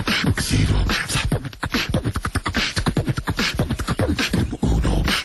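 Beatboxing: a fast, unbroken run of vocal clicks and deep thumps.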